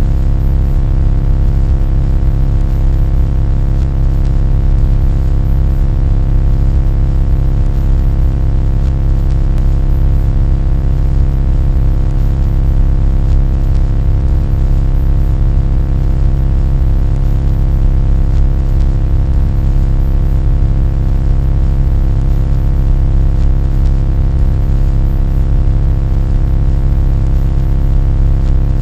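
A loud, steady low drone made of many fixed tones stacked over a deep rumble, unchanging throughout.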